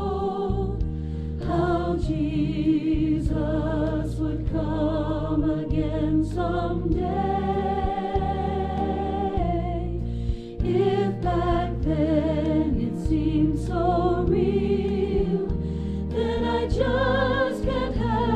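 Choral music: a choir singing slow, held chords with a wavering vibrato over a steady low accompaniment, the chords changing every second or two.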